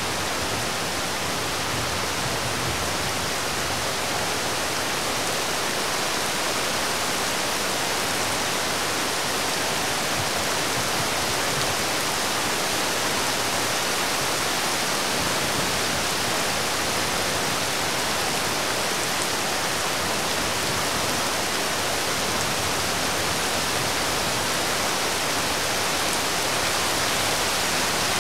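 Steady rain falling on a road and rooftops: an even, unbroken hiss.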